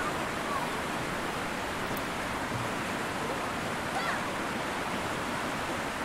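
Steady rushing of river water, with children's voices calling faintly now and then, too faint to make out words.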